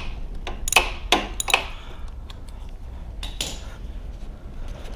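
Socket ratchet and wrench working a bolt loose: a few sharp metallic clicks and clinks, most of them in the first second and a half and a pair more about three seconds in.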